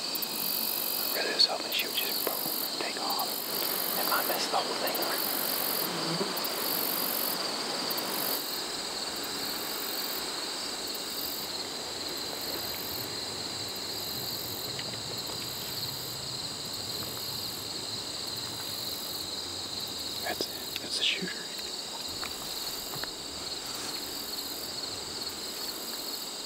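Insects chirping steadily in a continuous high trill, with a higher pulsing chirp about once a second. A few faint ticks come in the first few seconds, and a short chirp near the end.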